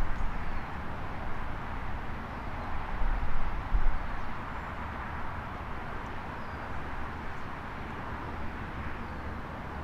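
Steady outdoor hum of distant traffic with a low rumble underneath, swelling briefly a few times in the first four seconds.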